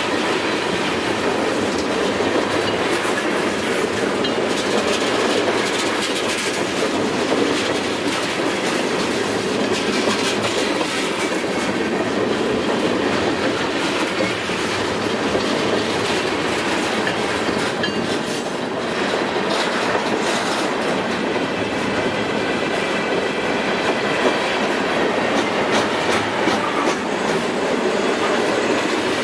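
Freight train tank cars rolling past close by: a steady rumble of steel wheels on the rails, with the clickety-clack of wheels passing over rail joints.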